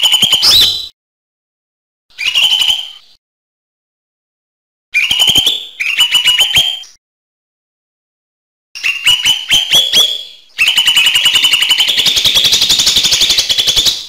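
Cucak hijau mini, a small green leafbird, singing in short, fast chattering phrases with silent gaps between them. The last phrase starts about ten and a half seconds in and runs on unbroken for about three seconds as a rapid, rattling warble.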